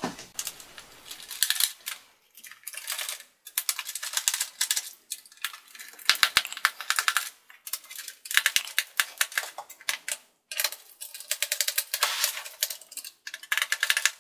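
Screwdriver clicking rapidly in repeated short bursts as the screws holding a ThinkPad T540p laptop's palmrest are backed out of the bottom case.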